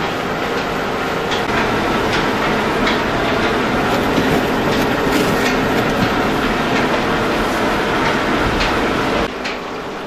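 Old mill's millstones running: a steady rumbling grind with scattered ticks and clatter from the grain feed, dropping in level a little past nine seconds in.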